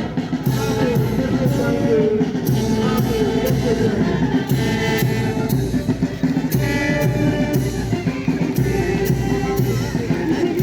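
Music with a steady drum beat, about two strokes a second, and singing.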